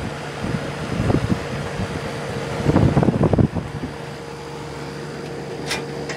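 Magic Chef 25-pint dehumidifier running with a steady hum, its fan turning much slower than it should because the fan motor is failing and overheating. About a second in and again around three seconds there are bursts of rattling handling noise on the unit, and a sharp click near the end.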